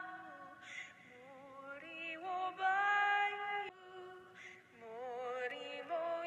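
Background music: a slow sung melody of long held notes that slide from one pitch to the next.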